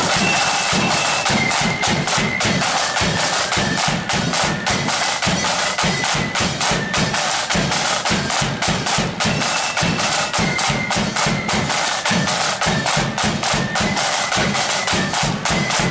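Marching band snare drums playing a fast, dense beat over regular bass drum strikes.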